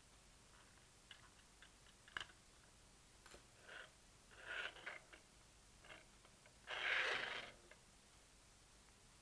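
Faint small clicks and scraping as fingers work plastic clock hands off the shaft of a vinyl-record clock, with a louder brushing, sliding noise lasting under a second about seven seconds in.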